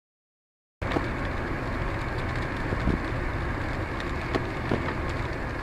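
Silent for the first second, then the steady noise of a car driving on a wet road, heard from inside the car, with a few light ticks.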